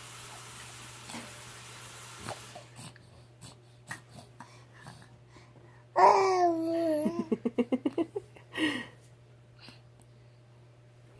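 Young infant babbling: one loud vocal sound about six seconds in, its pitch falling, that breaks into a quick run of creaky pulses, then a short second sound.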